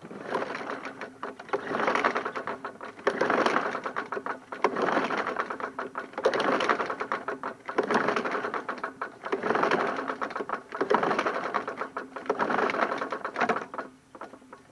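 A push mower's small engine being pulled over repeatedly by its recoil starter rope without firing, with a compression tester in the spark plug hole. It is about eight pulls in a row, roughly one every second and a half, with each pull a rapid run of cranking ticks. The tester has been reading low, around 26 PSI.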